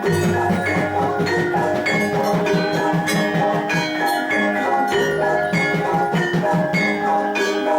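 Javanese gamelan ensemble playing jathilan accompaniment: bronze metallophones and gongs ringing in an even rhythm over a steady drum pattern.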